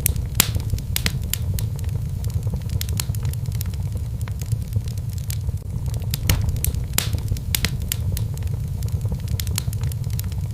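Wood fire burning with a steady low rumble and frequent irregular sharp crackles and pops.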